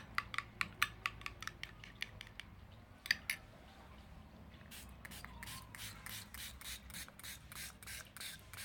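Slime mixture of glue and borax water being stirred in a container as it starts to thicken, making quick, regular scraping and clicking strokes. A run of strokes comes in the first couple of seconds, two louder ones follow at about three seconds, and a faster, steady run starts at about five seconds.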